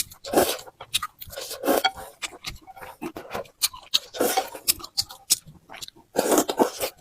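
Close-miked eating of flat rice noodles: wet chewing in irregular bursts, with small sharp clicks of utensils against a bowl.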